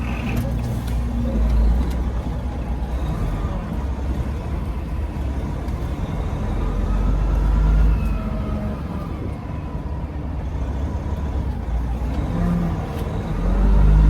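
Semi truck's diesel engine running at low speed while the rig is maneuvered, a steady low rumble that swells twice.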